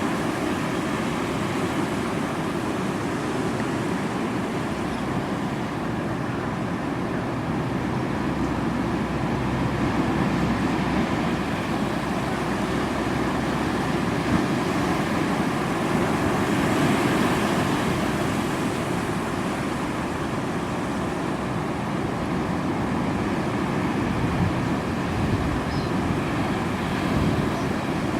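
Ocean surf rushing and breaking in a steady roar that swells and eases every few seconds.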